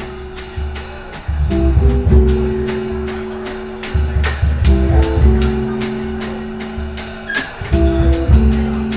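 Live jazz quintet playing: alto saxophone and clarinet hold long notes in chords that change about every three seconds, over upright bass, electric guitar and drums with frequent cymbal strokes.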